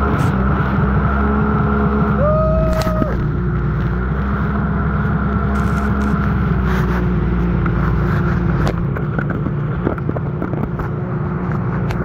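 Jet ski engine running steadily under way, with water rushing and splashing past the hull. A short steady tone sounds about two seconds in, and the engine note eases a little about two thirds of the way through.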